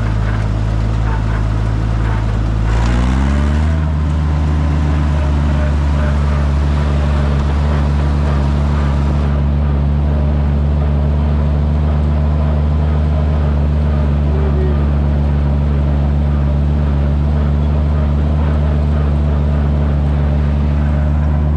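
Minneapolis-Moline G900's LP-gas six-cylinder engine running as the tractor drives along. About three seconds in, the engine speed rises over a second or so, then holds steady at the higher speed.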